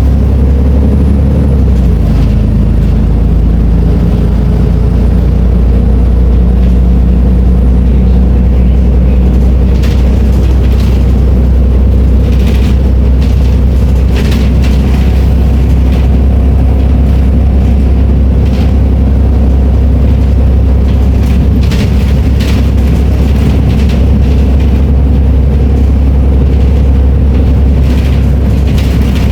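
Volvo B340M bus's diesel engine running, a loud steady low drone whose note shifts about two seconds in, with scattered short rattles over it.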